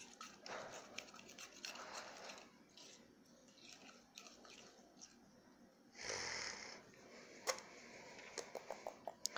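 Faint sticky squishing and clicking of homemade slime being stirred and worked by hand, with a louder airy squelch about six seconds in.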